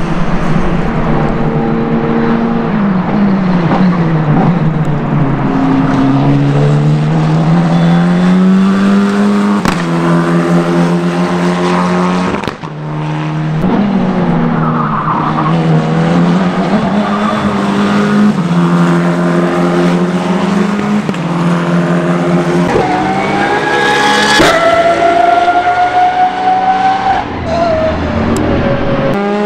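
Race car engines running on a circuit in several short clips, one after another. Tatuus F4 single-seaters' engine note rises and falls through upshifts and downshifts. Near the end a different car's engine holds a higher, steadier note.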